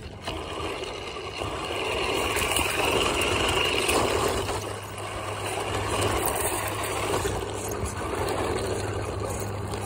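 Battery-powered four-wheel-drive RC truck driving, its motor running and tyres rolling over the ground in a steady noisy rush that gets louder about a second and a half in.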